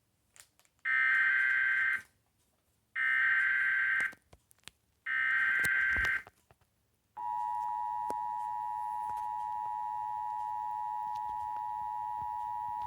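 Emergency Alert System tones heralding a severe thunderstorm warning: three one-second bursts of the SAME header's buzzing data tones, about a second apart, then the steady two-tone attention signal, which starts about seven seconds in.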